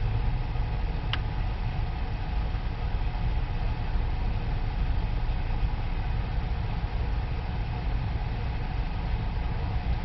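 Car engine idling steadily, a low even rumble heard from inside the cabin, with one short click about a second in.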